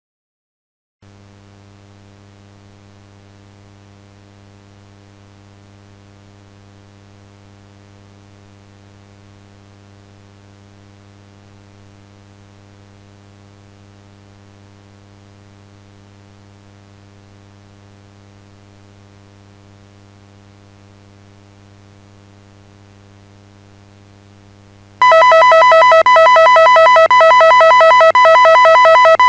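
A steady low electrical hum with a buzzy row of overtones. About 25 seconds in, a much louder, wavering electronic alert tone with several high pitches cuts in: the attention signal of a simulated emergency broadcast.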